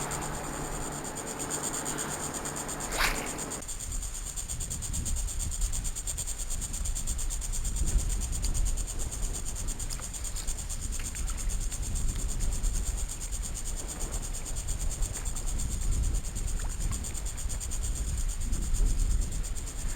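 Steady high-pitched buzz of insects such as crickets. A low hum stops about three and a half seconds in, and wind then rumbles on the microphone.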